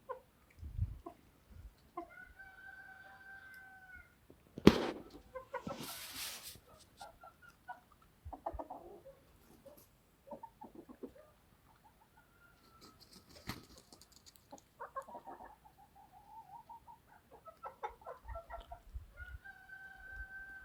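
Chickens clucking and calling, with two long held calls, one near the start and one near the end. A sharp loud knock comes about five seconds in, followed by a brief rustle.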